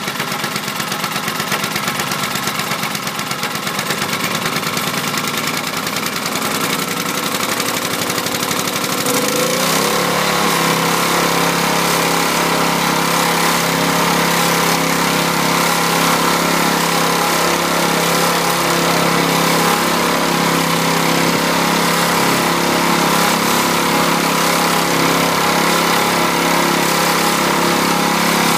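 Honda E1500 generator's engine running steadily, just started on full choke after its carburettor was cleaned. About ten seconds in, its pitch rises briefly and it settles into an even, steady run.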